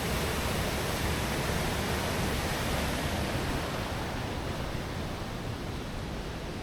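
Steady rushing of Düden Waterfall's falling water, an unbroken dense hiss. It grows a little duller and quieter in the last couple of seconds.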